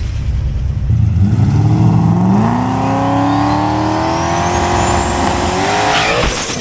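A drag car's engine accelerating hard down the strip, its pitch climbing steadily with a faint high whine rising alongside. About six seconds in it breaks off briefly for a gear change and starts climbing again.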